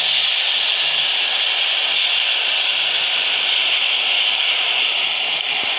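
New York City subway train running along the platform: steady, loud wheel-on-rail noise with a strong high hiss.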